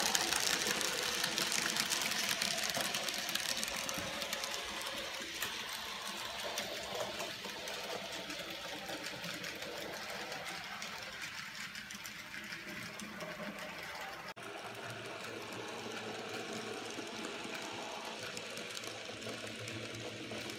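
N-scale model train running on the layout: the steady mechanical whirr of a Minitrix class 18.6 steam locomotive without a sound module and the rattle of wheels on the rails, growing slowly fainter.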